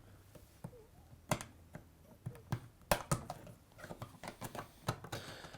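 Scattered sharp clicks and knocks at irregular intervals as a replacement dishwasher door latch is squeezed and pushed into its mounting holes, the loudest about a second in and about three seconds in.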